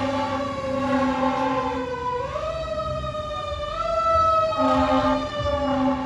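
Fire engine siren wailing, its pitch sliding slowly up and down, with several short blasts of a steady low horn over the truck's engine rumble.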